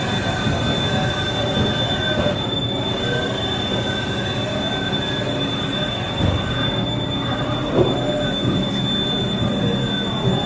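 Spindle of a Haas VF9/40 vertical machining center running at speed, a steady high-pitched whine over a lower mechanical hum.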